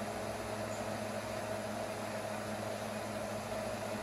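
Steady background hum with an even hiss: unchanging room noise.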